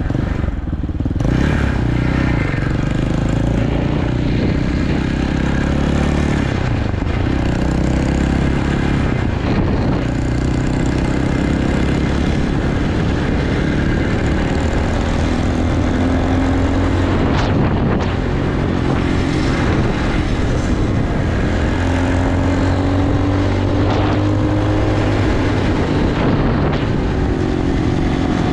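Dirt bike engine running while riding along a street, rising in pitch a couple of times as it accelerates.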